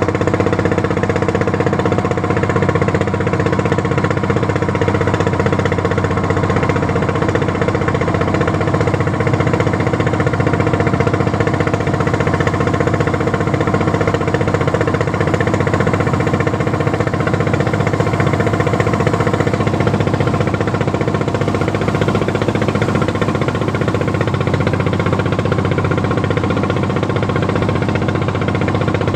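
Fishing boat's engine running steadily under way, at an even, unchanging pace.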